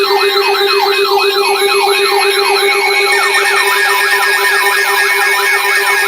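Electronic siren-type alert sound: a loud rising-and-falling yelp, about three sweeps a second, over a steady low tone. A second, faster yelp joins about three seconds in.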